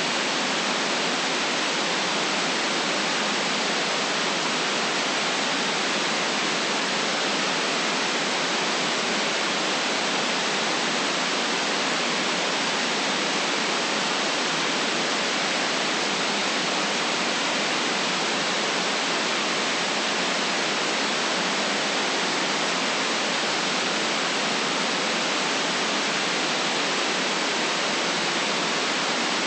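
Steady, unchanging white noise: an even hiss with little deep bass and no events or changes.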